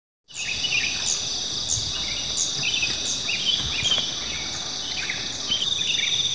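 Night chorus of crickets and other insects: a steady high-pitched trill that starts about a third of a second in, with a short chirp repeating about every two-thirds of a second over it.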